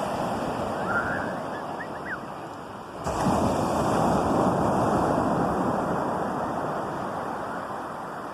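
Sea waves washing on a shore: a steady wash of surf, with a wave breaking about three seconds in that swells louder and then slowly dies away.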